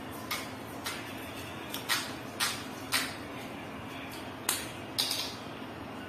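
Irregular sharp crackling clicks, about ten in six seconds, as yellow PTFE thread-seal tape is pulled off its roll and wound tight around a threaded pipe fitting. A steady low hum runs underneath.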